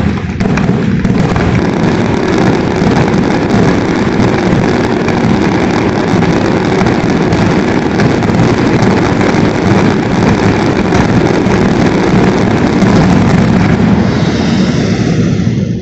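A dense, continuous barrage of fireworks: overlapping bursts and crackle merging into a steady loud rumble, cutting off suddenly at the end.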